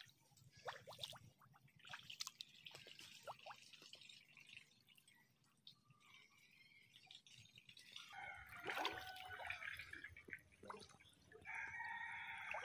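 A rooster crowing faintly, about eight seconds in and again near the end, over scattered small water drips and ticks.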